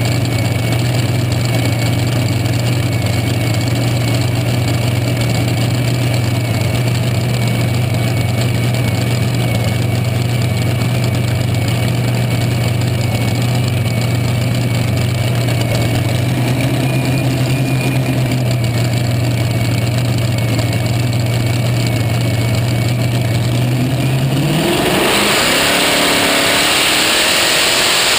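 Supercharged V8 of a pulling tractor with open zoomie headers, idling with a steady low rumble. Near the end the throttle opens and the engine revs up sharply as the pull begins.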